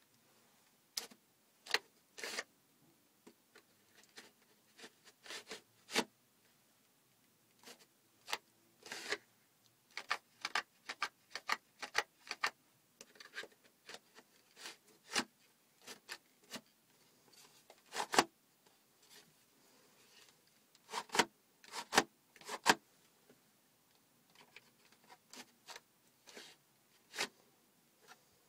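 Irregular clicks, taps and short scrapes of a homemade cardboard replica pistol being handled, its parts fitted together and pulled apart. A few louder knocks come near the two-thirds mark.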